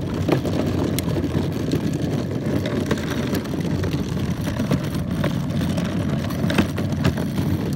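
Hard plastic wheels of a Step2 push car rolling over a concrete sidewalk: a steady low rumble with scattered sharp clicks and knocks.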